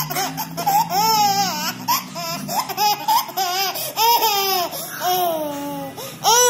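A toddler laughing hard, in a string of short high-pitched laughs, with the loudest laugh near the end.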